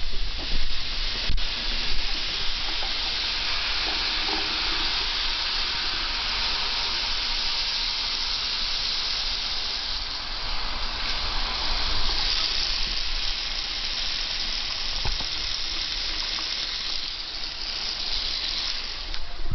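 Tap water running steadily, a continuous hiss, with a couple of faint knocks of handling.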